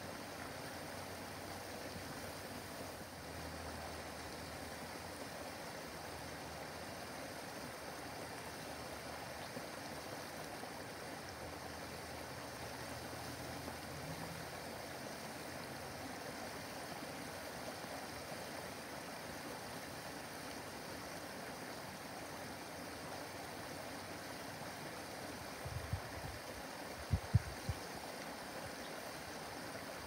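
Small backyard waterfall splashing steadily down a rock cascade into a pond, a continuous rushing of water. A few brief low thumps stand out near the end.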